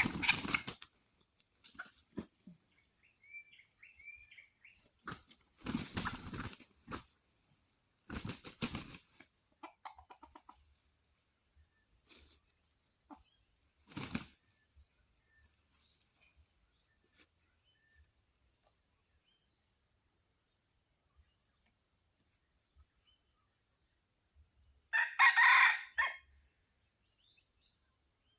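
Junglefowl: several short bouts of wing flapping and scuffling in the first half, then a loud rooster crow lasting about a second near the end. A steady high insect buzz runs underneath.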